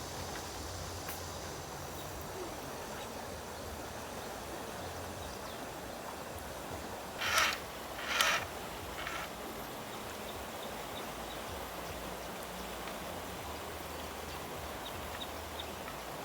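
Steady outdoor background noise, with three short noisy sounds about a second apart near the middle.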